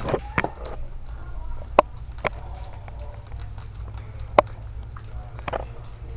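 Two-week-old miniature dachshund puppies suckling at their mother's teats: irregular wet sucking and smacking clicks, a few of them sharp.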